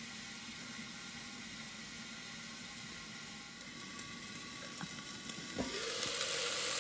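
Beef chunks frying in olive oil inside a covered enamelled cast-iron pot, a faint steady sizzle muffled by the lid. About five and a half seconds in the heavy lid is lifted with a knock, and the sizzling gets louder and brighter.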